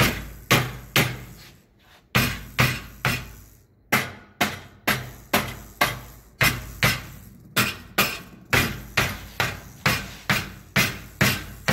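Mallet blows on a strip of sheet metal held between flat steel pieces on a steel table, bending it over in slow increments without a brake. The strikes are steady, about two to three a second, with a short pause about two seconds in.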